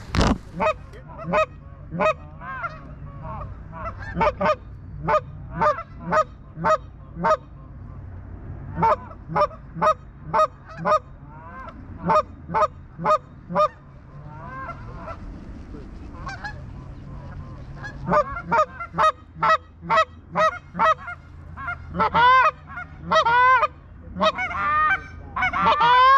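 Geese honking and clucking: a long run of short calls, often several a second, in bursts with a brief lull in the middle.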